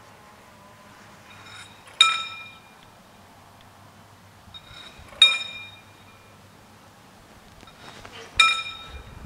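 Level-crossing bell striking single slow rings, three times about three seconds apart, each note ringing and fading over about a second, while the crossing barriers are lowering ahead of an approaching train.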